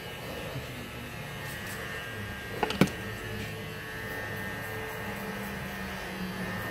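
Electric hair clippers running with a steady hum while blending a fade. A single sharp knock sounds just before three seconds in.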